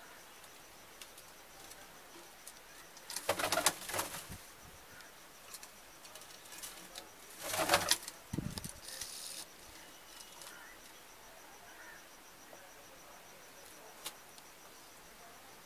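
Domestic pigeons flapping their wings in two short bursts, about three seconds in and again near eight seconds, the second followed by a brief low thump.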